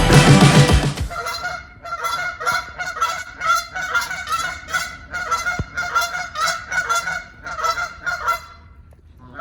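Geese honking over and over in short calls, two or three a second, after music cuts off about a second in; the honking stops shortly before the end.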